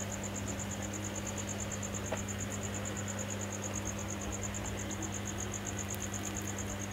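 A steady high-pitched chirp pulsing rapidly and evenly, over a constant low electrical hum.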